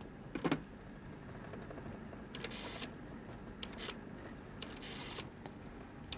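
A rotary telephone dial being dialled: after a single knock about half a second in, it clicks back in short runs of rapid ticks, one run about every second from about two seconds in.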